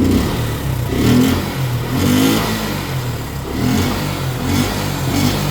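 Motorcycle engine running, its throttle blipped about four times so the revs rise and fall. It still sounds wrong to the owner after an air-filter cleaning, and he suspects the engine is not getting enough air once it reaches a certain rpm.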